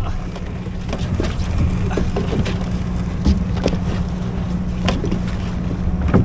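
A crab net being hauled up by hand from a kayak: scattered knocks, rustles and drips as the rope comes in against the hull, over a steady low rumble.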